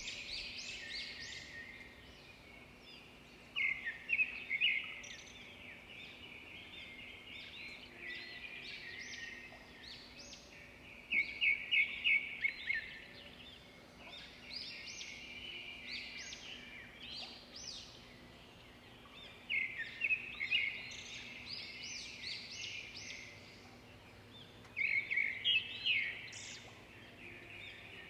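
Park birds singing and chirping in a continuous chorus. Four times, a louder burst of quick repeated chirps stands out.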